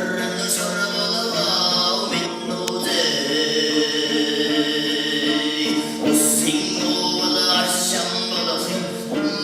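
Mongolian throat singing: a steady low vocal drone with many overtones, and high, whistling overtone tones held above it that come and go.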